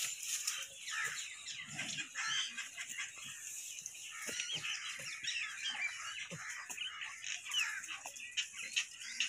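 Many small birds chirping and chattering, with a few soft knocks underneath.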